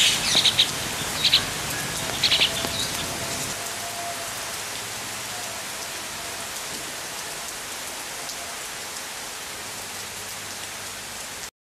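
Steady rain falling, an even hiss, with a few short bird chirps in the first three seconds. The sound cuts off suddenly just before the end.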